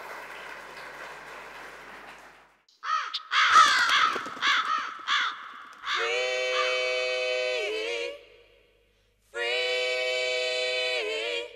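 Audience applause fading out, then crows cawing for a couple of seconds, followed by two long held musical tones of about two seconds each, each bending down in pitch at its end.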